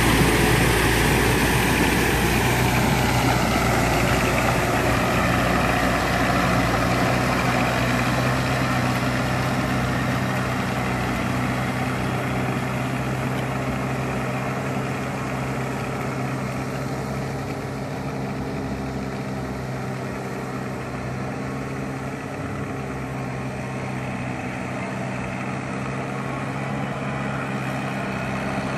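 Farm tractor engine running steadily while pulling a plough through a flooded rice paddy, growing gradually fainter as it moves away.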